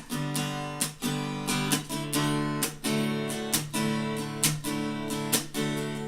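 Acoustic guitar strumming chords, about two strokes a second, with no singing.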